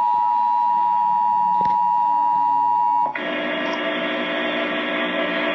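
Emergency Alert System two-tone attention signal: a steady, loud beep of two close pitches that cuts off about three seconds in. A steady hiss follows.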